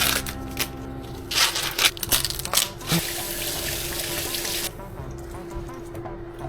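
A few knocks and clatters, then a kitchen tap running into a sink for about two and a half seconds before it is shut off abruptly.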